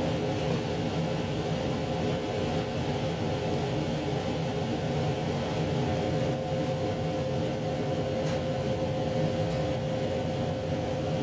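Inside a JR Shikoku 2700 series diesel limited express running along the line: a steady drone from the diesel engine, with a held tone, mixed with the rumble of wheels on rail.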